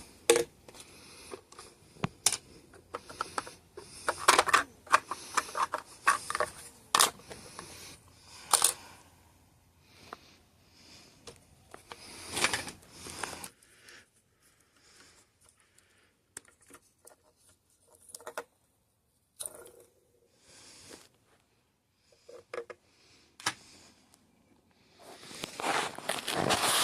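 Scattered clicks, knocks and short scrapes of small metal parts and tools being handled on an acrylic electric guitar as it is taken apart. The handling is dense at first, goes quiet for a while, and picks up again near the end with a longer scraping rustle.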